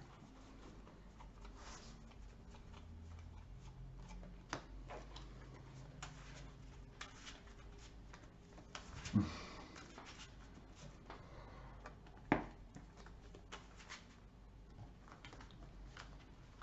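Faint room tone with scattered soft clicks and taps of playing cards being handled on a table, the loudest a dull knock about nine seconds in and a sharp click about three seconds later.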